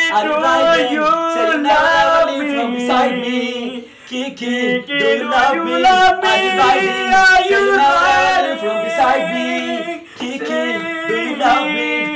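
Male voices singing a song, with little or no instrumental backing. The singing breaks off briefly about four seconds in and again about ten seconds in.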